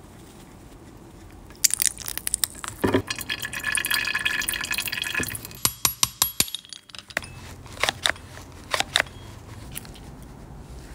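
Small hand tools clicking and scraping on the aluminium parts of a motorcycle rear shock absorber: a rasping scrape a couple of seconds in, then a quick run of sharp metallic clicks around the middle, and a few lighter clicks after.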